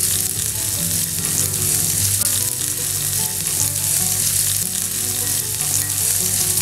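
Chopped onion sizzling in hot oil in a non-stick frying pan, with a spatula stirring and scraping the pieces around the pan as they sauté.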